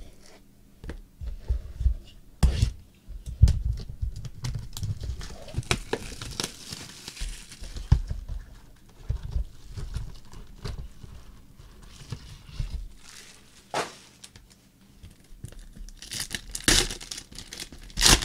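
A cardboard trading-card box and its plastic wrapping being handled and torn open by hand: scattered taps and knocks, a stretch of crinkling around the middle, and loud bursts of tearing and crinkling near the end.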